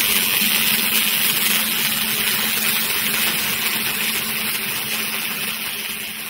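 Arc welding: an automatic wire-fed welding torch building up weld metal on a worn steel pin, a steady hiss over a low hum, gradually fading out in the last few seconds.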